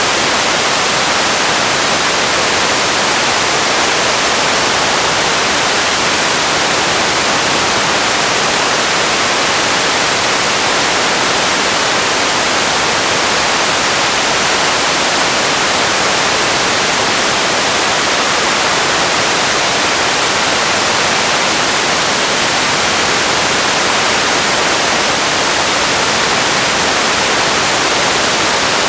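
Steady, unchanging hiss like static or white noise, loud and even, heavier in the upper range than in the bass.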